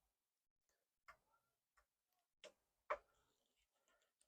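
Near silence broken by a few faint metallic clicks, one sharper than the rest about three seconds in: a hex key working the clamp screws of a hydraulic brake lever on the handlebar.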